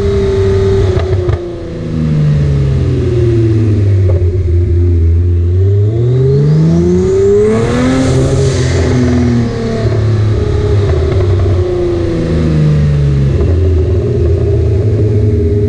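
Kia Stinger 3.3-litre twin-turbo V6 running, its revs swinging up and down, climbing to a peak about eight seconds in and falling back, with a high whine that rises and falls with the revs.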